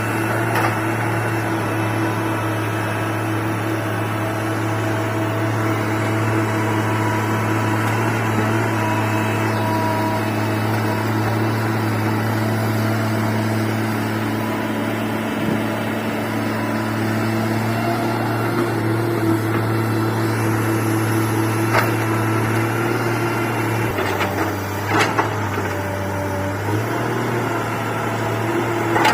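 Komatsu excavator's diesel engine running steadily with a constant low hum, with a few short sharp knocks near the end.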